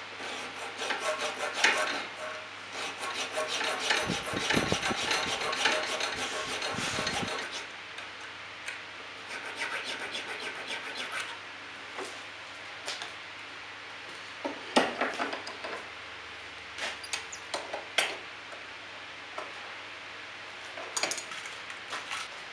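Hand file rasping on the spring-steel jaws of a pair of tongs clamped in a bench vise: quick, rapid strokes for the first seven seconds or so. After that come scattered short clicks and knocks as the work is handled.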